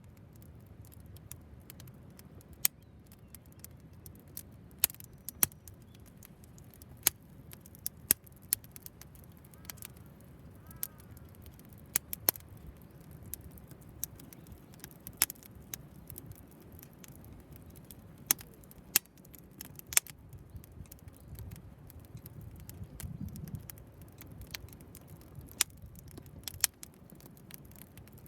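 Wood fire crackling in a homemade tower-style fire pit, with sharp irregular pops and snaps over a low steady rumble.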